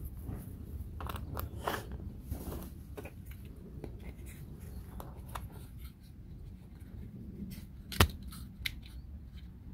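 Small laser-cut wooden puzzle pieces being worked by hand: scattered light clicks and scrapes, with one sharp snap about eight seconds in.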